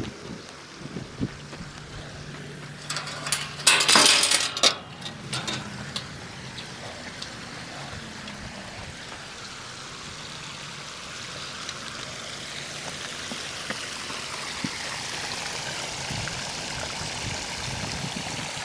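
Small backyard rock waterfall splashing into a garden pond, a steady rush of falling water that grows louder toward the end. A loud burst of noise about three to five seconds in.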